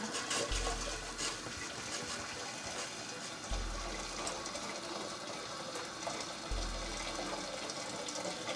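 Water pouring in a steady stream from a jug into a stainless steel cooking pot, filling it.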